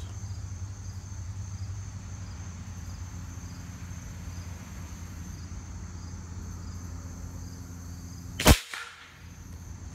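A single shot from a .357 Winchester Big Bore Model 70 PCP air rifle, one sharp report about eight and a half seconds in. Insects chirp steadily over a low hum.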